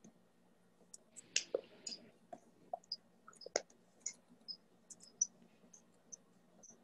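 Light, irregular clicks and taps from typing on an iPad's on-screen keyboard and tapping its screen.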